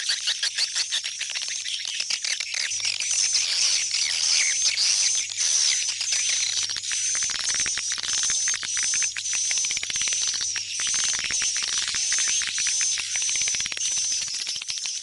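Swiftlet calls of the kind played as a lure in swiftlet houses to bring the birds home. A dense chatter of high twittering chirps settles, in the second half, into one chirp repeated about twice a second.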